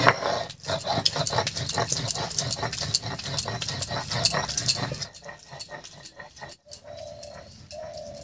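Stone roller rocked back and forth on a flat grinding stone (shil-nora), crushing a paste of boiled cauliflower leaves with garlic, green chillies and coriander: a rapid, even knocking and scraping of stone on stone, about five strokes a second. After about five seconds the strokes stop and only quieter clicks follow.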